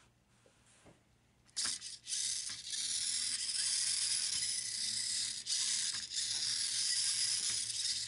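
Silence for about a second and a half, then a small metal-framed kit robot being handled on a tabletop: a few light clicks and rattles of its metal parts over a steady hiss.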